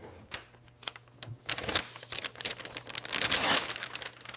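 Crinkling, rustling handling noise with scattered small clicks, louder in stretches about one and a half seconds in and again around three seconds in.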